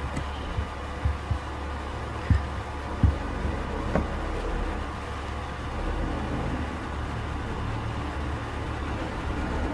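Steady low background hum with a handful of soft clicks and thumps from a keyboard and mouse during the first four seconds, as lines of code are edited and the script is launched.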